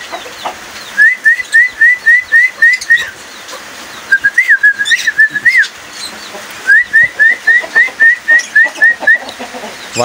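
Pet cockatiel whistling: a run of short rising whistle notes at about four a second, a wavering whistled phrase in the middle, then another run of the rising notes.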